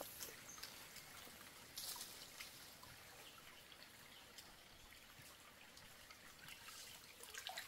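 Near silence: faint trickling of stream water over rocks, with a few soft clicks and scuffs.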